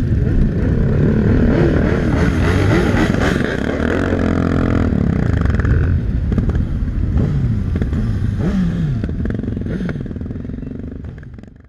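Many motorcycle engines running together, their notes rising and falling over one another as the bikes rev and pull away in a group. The sound fades out near the end.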